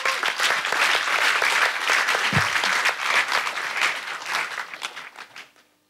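Audience applauding in a hall, the clapping thinning out and dying away near the end.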